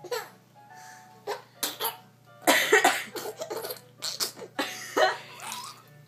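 A girl coughing in a series of harsh coughs, the loudest fit about two and a half seconds in.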